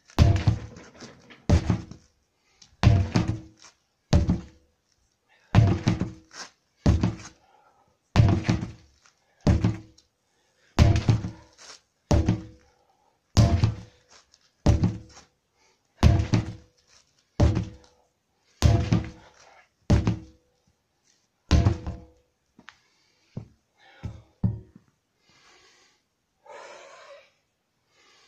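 Sledgehammer slamming down onto a stack of rubber tyres in a steady rhythm, about one heavy thud every 1.3 seconds, some seventeen blows, then a few lighter knocks. Near the end, heavy breathing.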